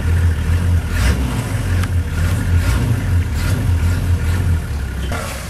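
Open safari vehicle's engine running at low speed with a steady low drone, with a few short knocks and rattles scattered through it.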